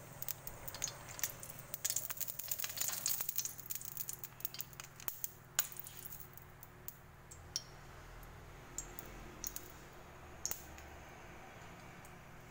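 Cooking oil heating in a stainless steel wok, crackling with quick sharp pops. The pops are thick for the first few seconds and thin to scattered ticks after about six seconds.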